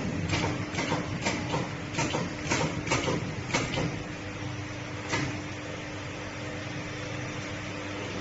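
Shock absorber crimping machine running with a steady hum while it crimps a steel ring onto an air suspension strut's rubber bladder. Irregular clicks and knocks come through the first few seconds, then only the hum.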